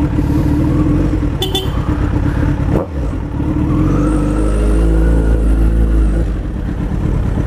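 Suzuki Hayabusa's inline-four engine running loud through straight pipes, with the mufflers removed, while being ridden. After a brief break in the sound about three seconds in, the engine revs up and its pitch rises for about three seconds before it backs off.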